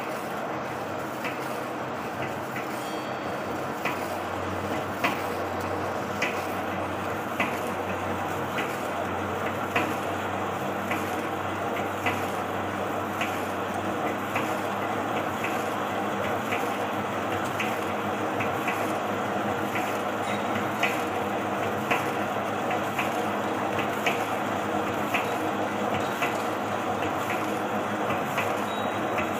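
Horizontal ring-type stretch-film wrapping machine running as it wraps a coil: a steady mechanical hum with a short, sharp click about every one and a quarter seconds.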